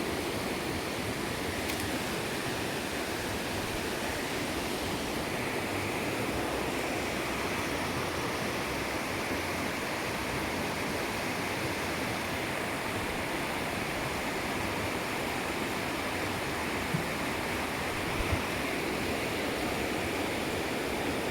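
Steady rush of running water, even and unbroken, with a couple of faint ticks near the end.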